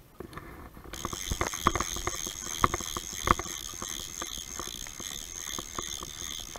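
Water sloshing and knocking close to the camera in a run of irregular sharp knocks. A steady, pulsing high-pitched buzz starts about a second in.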